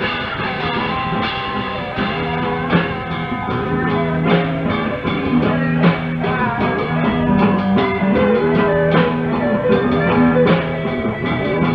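Rock band recording: a droning bassline repeating under electric guitar and a drum kit, with a sung vocal.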